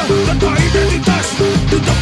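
Instrumental passage of a dangdut-rock song played by a band: guitar repeating a short riff and a wavering melody line over bass and steady drums.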